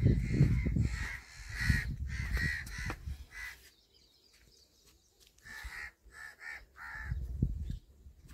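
Crows cawing: a run of short harsh caws over the first three seconds or so, then, after a brief lull, four quicker caws in a row.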